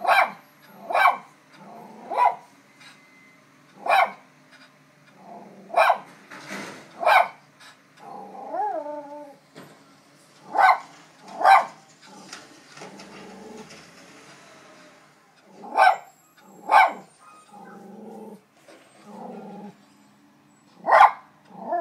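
Small terrier barking at a garbage truck outside the window: about a dozen sharp single barks, a second or several apart. A rising-and-falling whine comes about eight seconds in, and lower grumbling sounds near the end.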